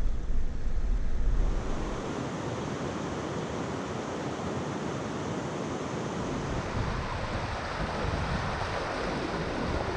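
River water rushing steadily over a shallow low-water crossing. During the first second and a half a louder low rumble with wind buffeting the microphone sits under it, then drops away.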